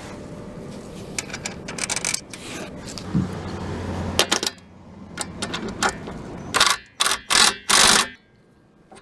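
Hand handling of an aluminium solar-panel tilt bracket and its bolt hardware: scattered metal clicks and scrapes, then four loud scraping bursts in quick succession near the end.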